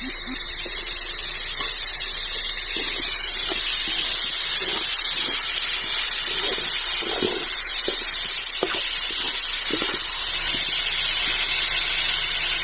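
Guinea fowl meat with cashews, onions and tomatoes frying in oil: a steady sizzle with scattered short pops.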